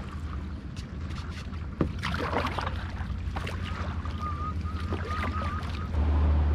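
A single-bladed paddle dipping and splashing in lake water as a stand-up paddleboard is paddled, over a steady low rumble. A short warbling whistle is heard in the middle, and the low rumble grows louder near the end.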